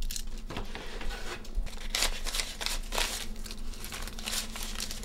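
Paper banknotes rustling and crinkling as a wad of cash is handled and counted by hand, in irregular rustles, over a faint steady hum.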